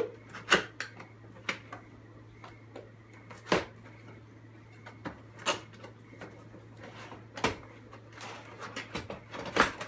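Cardboard kit boxes being handled and opened on a table: scattered knocks and taps every second or two, with denser rustling of the packaging near the end.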